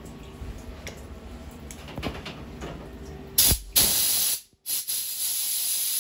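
Compressed-air blow gun hissing in blasts to clear chips, coolant and cut-off scrap pieces from a part on a CNC mill. It starts about halfway in with two short bursts, stops briefly, then blows steadily.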